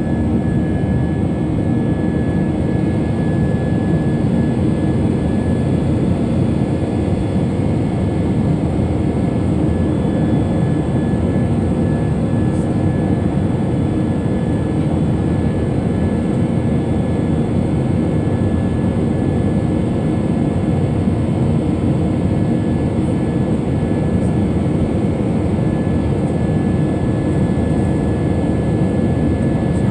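Airliner's jet engines and rushing air heard inside the passenger cabin during the climb after takeoff: a loud, steady low-pitched noise with a faint steady whine above it.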